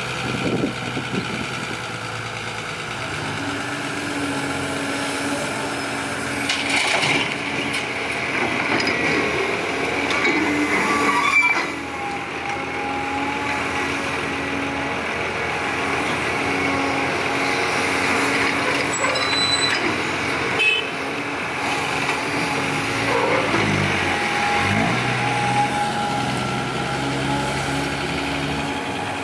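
CAT 320D hydraulic excavator's diesel engine running and pulling harder as it digs and swings its bucket, alongside a dump truck's diesel engine idling. A couple of sharp knocks come about a third of the way in and again about two-thirds in, and the engine pitch rises and falls near the end.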